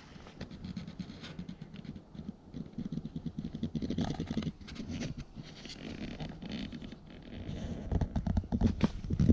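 Irregular small crunches, scrapes and rustles of movement in crusted snow and spruce boughs, with no axe blows. The crackles come thicker and sharper near the end.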